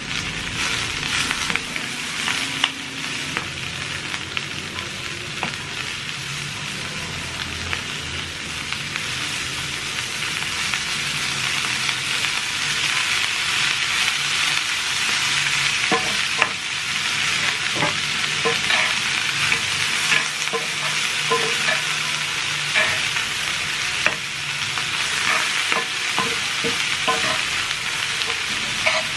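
Cabbage, carrot and green pepper stir-frying in a skillet: a steady sizzle as the vegetables cook, with a wooden spoon scraping and knocking against the pan as they are tossed. The knocks come more often in the second half.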